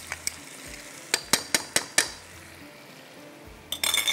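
Food frying in a karahi with a steady sizzle, while a metal spoon clinks against the pan. There is a run of about five sharp taps a second or so in, and a quick cluster of clinks near the end.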